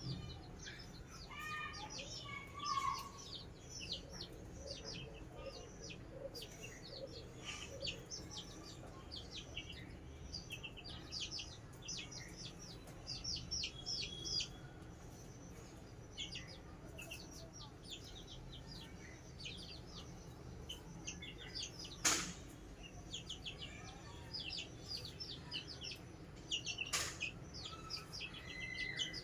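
Chicks peeping continuously: a steady stream of short, high-pitched cheeps, each falling in pitch. Two sharp taps stand out, the louder about two-thirds of the way through and another near the end.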